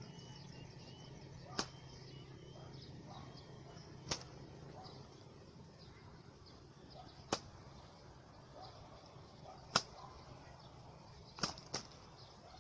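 Sharp single clicks every two to three seconds, with two in quick succession near the end, over faint high-pitched chirps of small birds.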